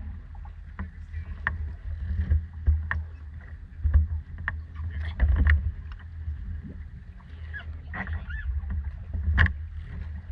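Water lapping and knocking against a boat's hull as it floats at the dock, with irregular small slaps and splashes over a steady low rumble.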